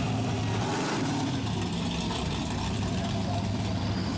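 Hot rod drag car's engine running through open exhaust, a steady low rumble as it rolls past at parade pace.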